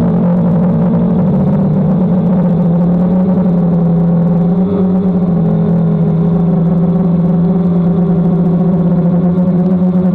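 DJI Phantom quadcopter's motors and propellers in flight: a loud, steady buzzing hum whose pitch wavers slightly.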